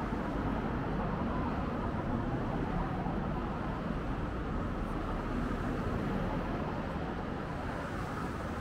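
Steady city street traffic noise: a continuous hum of vehicles with a low rumble underneath.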